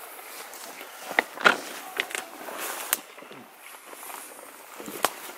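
Footsteps through dry grass and brush, with several irregular sharp snaps and crackles from stems and twigs underfoot.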